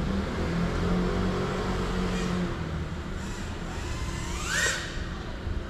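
Motors and propellers of a GEPRC CineLog35 FPV cinewhoop whining at a distance, with a quick rise in pitch about four and a half seconds in as the throttle is punched, over a low steady hum.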